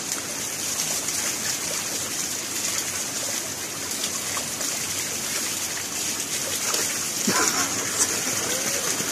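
Spring water pouring steadily from a pipe, splashing over a person's head and body and onto wet rocks below.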